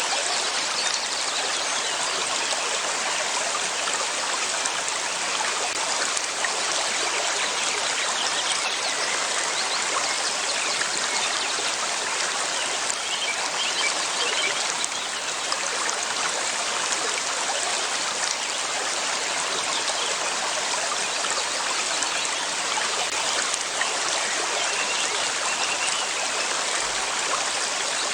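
River water flowing steadily, a continuous rushing trickle with no change in level.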